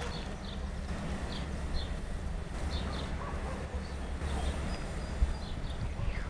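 Low, steady rumble of an approaching freight train's diesel locomotives, with small birds chirping now and then over it.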